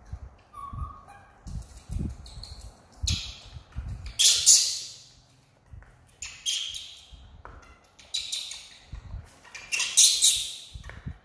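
Young macaques giving short, loud, shrill squeals and squawks, four or five times, with soft low thumps in between.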